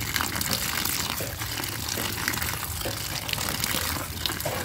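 Water running steadily as wild mushrooms are washed clean of dirt by hand, with a few light knocks of handling.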